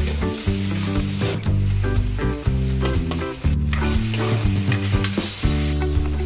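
Onions, chilli and chicken sizzling in a wok as a steel ladle stirs them, with background music over it.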